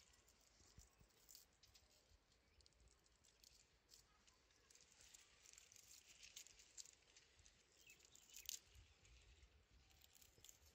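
Near silence in an open field: faint scattered rustles and ticks over a faint low rumble, with one slightly louder rustle about eight and a half seconds in.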